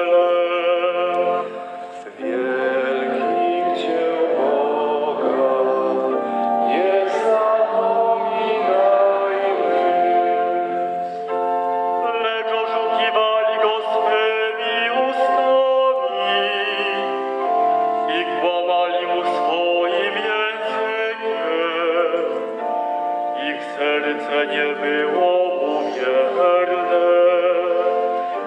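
A male cantor singing the responsorial psalm in Polish over held organ chords.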